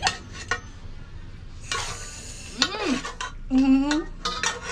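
Metal spoon stirring and scraping in a stainless-steel cooking pot, with sharp clinks near the start and a scraping stretch in the middle.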